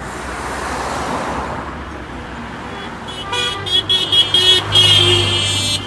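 Cars driving past with the rush of tyres and engines, then from about three seconds in several car horns honking in short repeated toots, loudest near the end.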